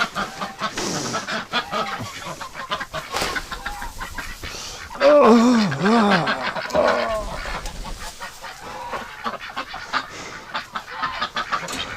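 Domestic geese calling among the flock, a run of arching honks about five to seven seconds in, over a steady crackle of short rustles and knocks from straw being spread on the barn floor.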